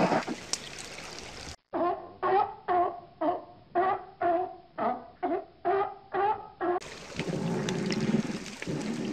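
Water sloshing and splashing that cuts off abruptly, followed by a run of about eleven short, pitched marine-mammal calls, roughly two a second. The water sound returns near the end.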